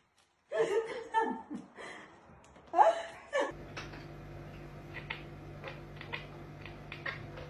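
A person laughing in several bursts for about three seconds. After that comes a steady low hum with a few faint clicks.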